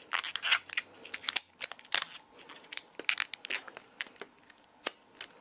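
A clear 160 latex modelling balloon being squeezed and knotted by hand: irregular small crinkling, rubbing and clicking sounds. A single sharp snip near the end as scissors trim the knotted balloon.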